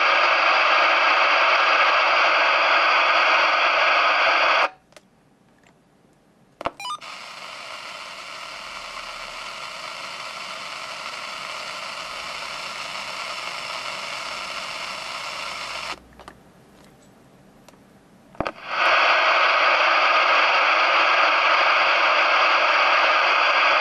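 CB radio receivers with squelch off, volume at full and no antenna, hissing with their own receiver noise. A President Johnny gives a loud, even hiss that cuts off about five seconds in. After a switch click, a President Harry II hisses much more quietly, and after another click near the end the loud hiss returns. The loud hiss is the mark of a 'totalny szumofon', a set whose own noise would drown out distant stations; the quieter one is a normal CB.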